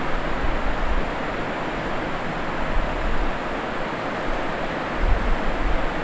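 Steady rushing background noise, like air or a fan across the microphone, with short low rumbles near the end.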